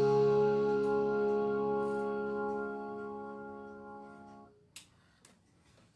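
Closing chord of a gospel song's recorded backing track, held and slowly fading, then cut off suddenly about four and a half seconds in. A couple of faint clicks follow.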